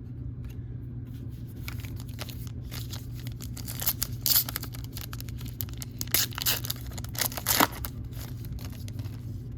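Foil wrapper of a Panini Mosaic baseball card pack being torn open and crinkled, crackling throughout, with louder tearing bursts about four seconds in and again around six to seven and a half seconds in.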